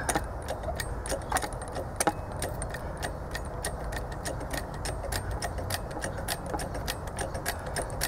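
Homemade hose crimper's 30-ton hydraulic jack being worked to drive the die down: light metallic clicks and clinks at an irregular pace, over a steady low rumble. The die has not yet begun to grip the fitting.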